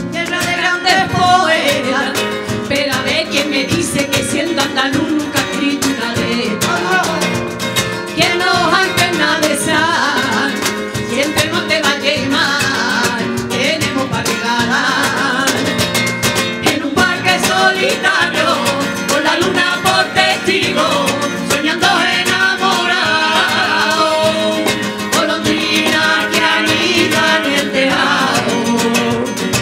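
Two women singing a flamenco song into microphones, with acoustic guitar accompaniment.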